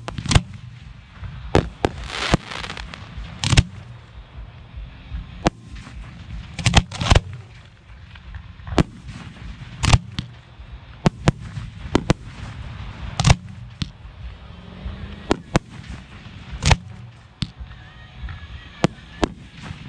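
Professional 1.3G aerial firework shells firing from mortar racks and bursting: around twenty sharp booms at irregular intervals, some in quick pairs or clusters, with a brief hissing stretch about two seconds in.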